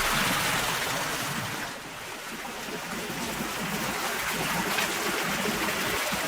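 Water rushing steadily, easing off briefly about two seconds in.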